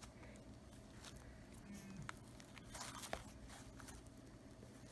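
Faint sticky crackles and tearing of homemade glue-and-detergent slime being stretched and kneaded by hand, a few louder crackles about three seconds in; the slime is still slightly sticky.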